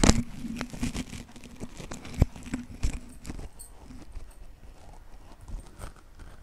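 A ladle stirring and scraping onion paste around a metal kadhai, with irregular knocks of the ladle against the pan. The knocks are busiest in the first three seconds and fainter after.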